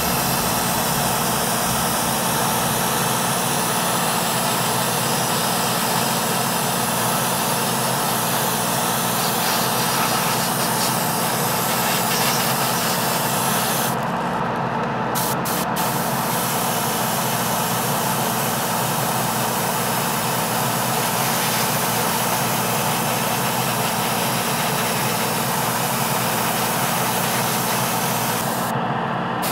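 Airbrush spraying paint with a steady hiss over the hum of its air compressor. The spray hiss stops briefly about halfway through while the hum keeps going.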